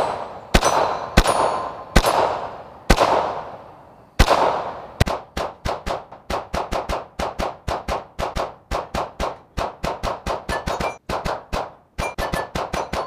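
.22 LR semi-automatic pistol firing: a few spaced shots, then from about five seconds in a fast string of about three to four shots a second, each shot echoing. Steel targets ring faintly after some hits.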